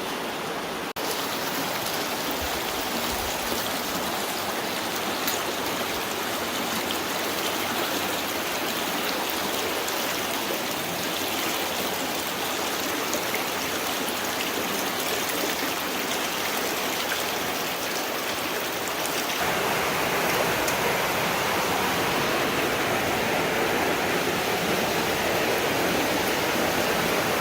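Floodwater left by a flash flood running steadily through a slot canyon, an even rushing hiss that grows louder about two-thirds of the way through.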